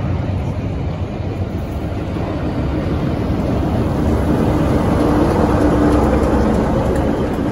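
A Class 47 diesel locomotive passing close by at the rear of a train over a steady rumble of wheels on the rails. Its engine hum grows louder as it draws level about halfway through, then eases.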